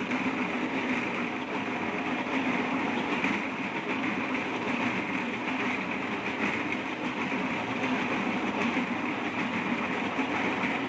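Marais micro-trenching machine's saw blade cutting a narrow slot into the road surface, engine running under load: a steady grinding drone that does not change.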